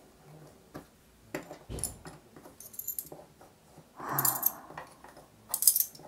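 Small hard objects clinking and rattling as they are handled on a tabletop, in a few short bursts with light clicks between them.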